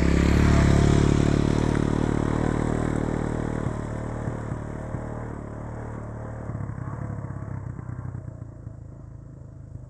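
Motorcycle engine running and easing off as the bike slows, its sound fading steadily and settling into a quick, low putter in the last few seconds.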